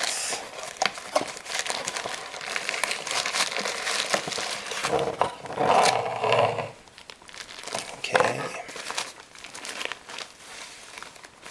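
White paper wrapping being crumpled and crinkled by hands as a camera is pulled from its box and unwrapped. There are dense crackles, with a louder bout of handling around the middle.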